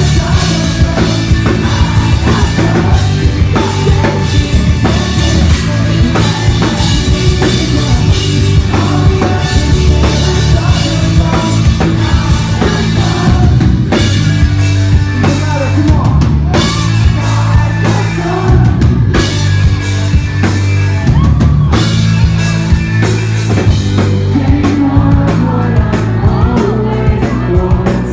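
Pop-punk band playing loudly live, the drum kit driving hard with a heavy bass drum under the band.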